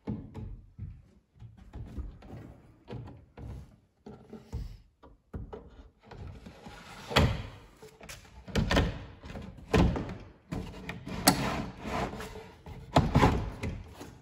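Wooden drawer slid in and out on metal drawer slides: rolling runs of the slides broken by a series of sharp wooden knocks as it is pushed shut and pulled out, the loudest in the second half.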